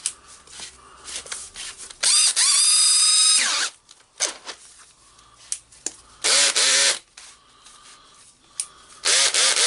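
Makita BHP452 18V cordless hammer driver-drill's brushed motor running in three short trigger pulls, each a whine that rises as it spins up and falls as it winds down; the first is the longest, about a second and a half. Small clicks sound between the runs. The drill is being test-run on its newly fitted switch and works.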